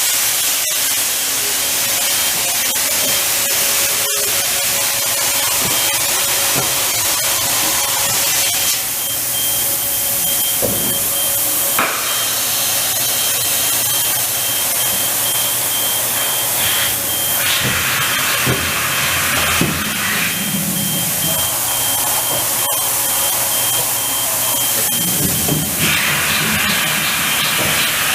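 Haas VF-3SS CNC vertical machining center running, with a steady hiss of coolant spraying and a high steady whine that comes and goes.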